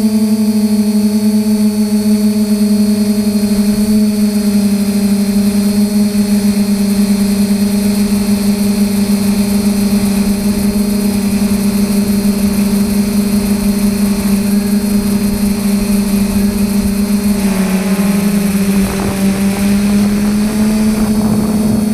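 Quadcopter's DJI 2212 brushless motors and 9450 propellers, heard from the onboard camera: a steady, loud hum in flight over a rumble of wind. Near the end the pitch drops briefly as the motors slow, then rises back.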